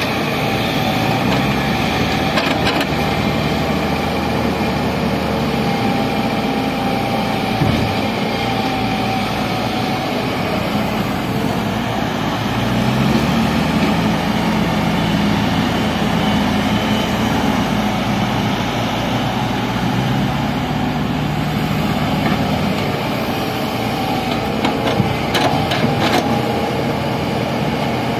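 JCB JS140 tracked excavator's diesel engine running under hydraulic load, its note rising and falling as the boom and bucket work through a dig-and-swing cycle. A few short knocks come near the start and near the end as soil is dumped into the steel tipper body.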